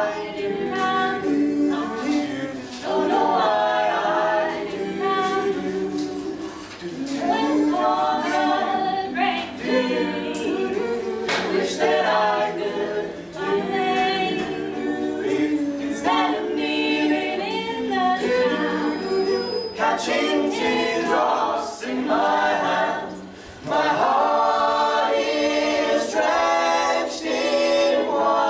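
A small mixed a cappella group of men's and women's voices singing in close harmony, holding chords in long phrases with a short break near the end.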